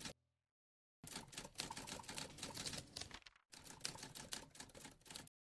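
Rapid, dense typing-like clicking that starts about a second in after a short silence. It runs in two stretches split by a brief break past the middle, and stops just before the end.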